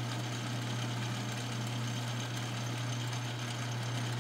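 Small metal lathe running with its four-jaw chuck spinning: a steady motor hum with a fainter hiss over it.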